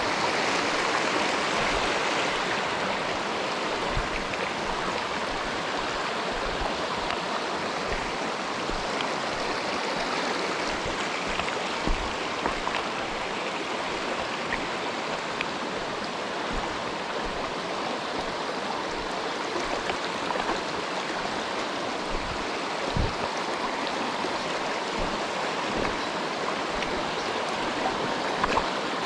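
Mountain stream rushing steadily over rocks, with a few soft low thumps along the way.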